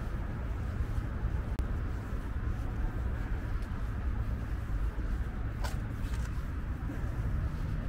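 Open-air city ambience: a low, uneven rumble of wind on the microphone over faint distant traffic, with one brief sharp sound a little over halfway through.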